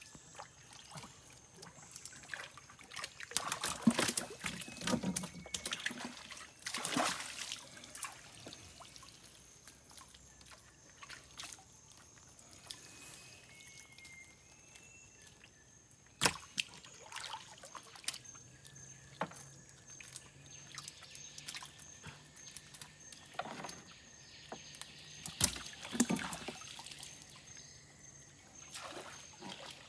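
River water sloshing, trickling and dripping as a fishing net is hauled up, with a sharp knock just past halfway and two more near the end.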